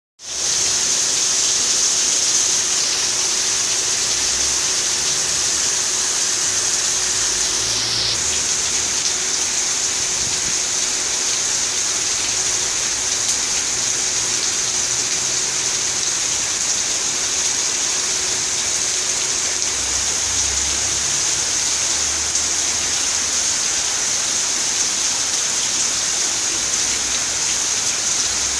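Heavy, steady downpour of rain pelting down, a dense unbroken hiss.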